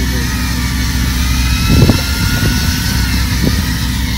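A fishing boat's onboard machinery running with a steady low hum, and a faint high whine that slowly rises and falls above it. A few short knocks sound around the middle, the loudest about two seconds in.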